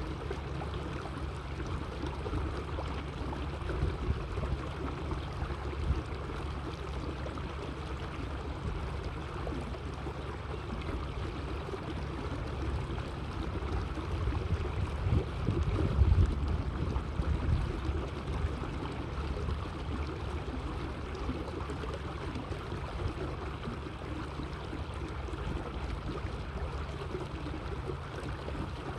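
Water splashing and lapping along the hull of a small electric boat cruising slowly, with a steady low rumble that swells briefly about halfway through.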